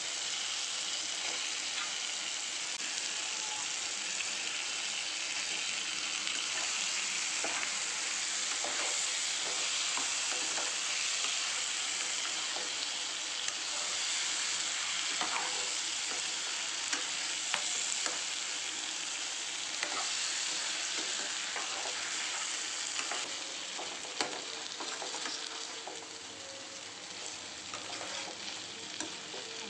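Boiled eggs frying in onion-tomato masala in a kadai, the hot oil sizzling steadily, with scattered clicks and scrapes of a perforated metal ladle against the pan as it is stirred. The sizzle quietens a little near the end.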